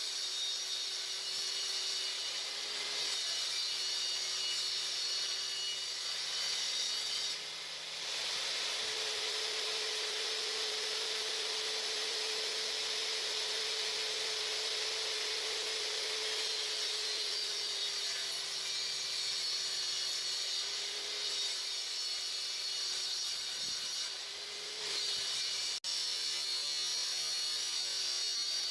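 Table saw running and cutting 16mm melamine board: a steady high whine over a hiss, dipping briefly twice, about seven and a half and twenty-four seconds in.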